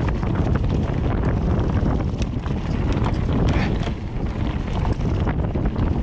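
Wind buffeting the microphone over the clatter and ticking of a mountain bike rolling fast over a rough trail, with many short knocks.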